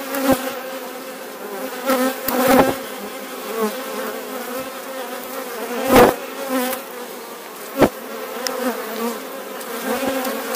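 Honeybees buzzing in a steady hum around an opened hive crowded with bees, with a few sharp knocks among it, the loudest about six seconds in.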